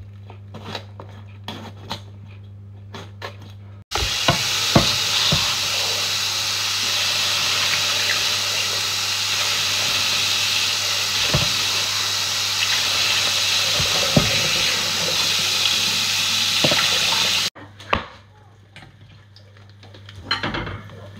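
Kitchen tap running at full flow for about fourteen seconds as a bell pepper is rinsed under it, the water splashing into a bowl in the sink; the water starts and stops abruptly. Before and after it, light clicks and taps of a knife against the pepper and a wooden chopping board.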